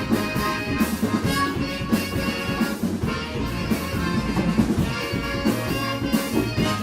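A band playing live music, with a steady percussive beat under several pitched instruments.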